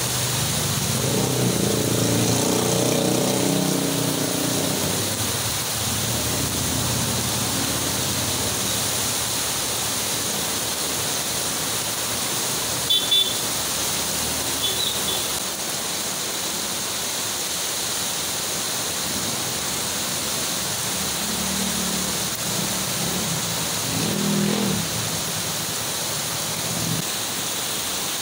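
Heavy rain pouring steadily onto a street, with motorcycle-sidecar tricycles and a motorcycle splashing past through standing water. Their small engines swell up over the rain in the first several seconds and again a few seconds before the end. Two brief high chirps about halfway through.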